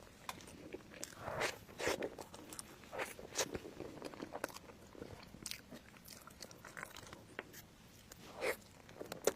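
A person biting into and chewing crunchy food close to the microphone, with irregular crisp crunches and crackles.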